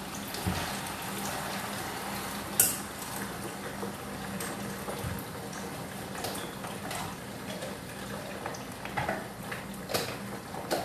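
Potatoes sautéing in hot oil in a pan, a steady sizzle, with clinks and knocks of utensils and dishes now and then, the sharpest about two and a half seconds in.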